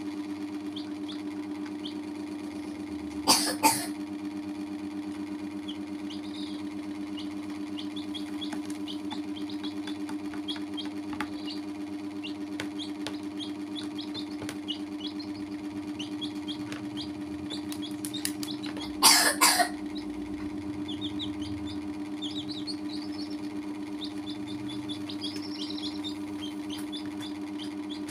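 Baby chicks peeping, a scatter of short high peeps over a steady low hum. Twice, about three seconds in and again about nineteen seconds in, a short loud noisy burst stands out above everything.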